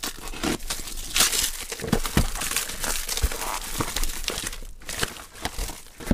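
Clear plastic stretch wrap being pulled and torn off a cardboard box, crinkling and crackling irregularly, with a few dull knocks of the box being handled about two and three seconds in.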